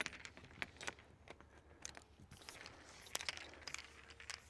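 Scattered small clicks and metal clinks of tools and pipe fittings being handled at a well head, with footsteps on dry grass.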